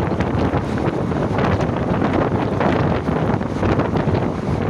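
Heavy wind buffeting a microphone held out of the open door of a moving passenger train, over the steady rumble of the coach running along the track.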